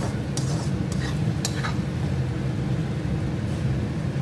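Metal spatula stirring and scraping tomato puree and onion masala in a black kadai, a few short scrapes in the first two seconds, over a steady low rumble.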